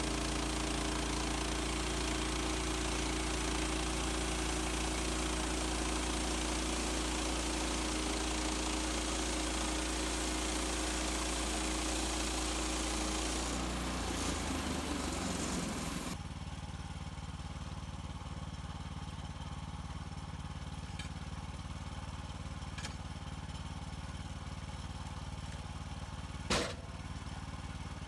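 Small gas engine of a portable bandsaw mill running steadily at speed, then dropping to a quieter, lower running sound about halfway through. One sharp knock near the end.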